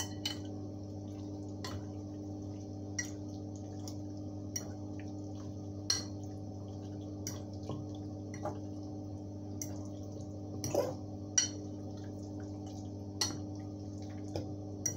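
A metal fork clinks against a glass mixing bowl, and the marinade squelches wetly as raw chicken wings coated in oil and seasoning are turned over. The clinks come irregularly, about one every second, over a steady low hum.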